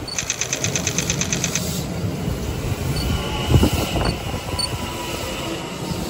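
Electric commuter train pulling in alongside a platform and passing close by: a steady rumble of wheels and running gear, with a heavy thump about three and a half seconds in. A thin high squeal runs for a couple of seconds in the middle. A rapid run of high pulses, about ten a second, sounds during the first second and a half.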